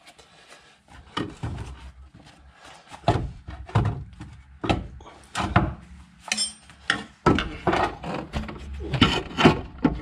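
New front lower wishbone arm of a Vauxhall Vivaro being manoeuvred into its mountings: irregular clunks and knocks of the arm against the suspension, coming more often near the end.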